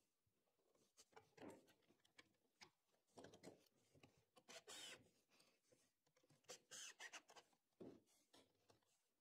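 Near silence broken by faint clicks, knocks and rustles of timber and tools being handled, with two brief scraping bursts near the middle.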